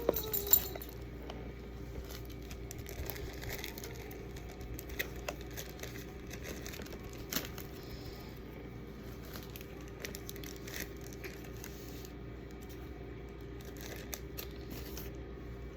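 Plastic bags and wrappers crinkling and rustling as goodie bags are handled and filled, with scattered small clicks and a few sharper tears, over a steady faint hum.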